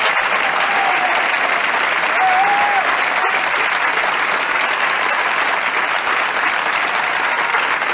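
Theatre audience applauding steadily after an opera aria, with a drawn-out shout rising and falling above the clapping about two seconds in.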